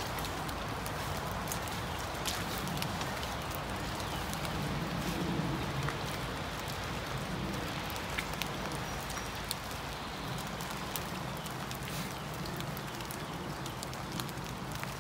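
Light rain pattering on leaves: a steady hiss with scattered sharp ticks of single drops.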